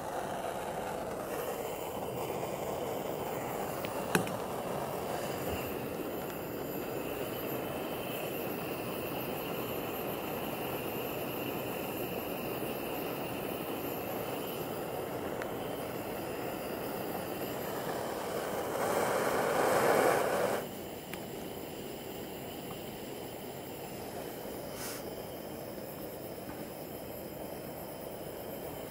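Gas camp stove burner running, a steady rushing flame noise. It swells for about two seconds past the middle, then settles a little quieter. A single sharp click about four seconds in.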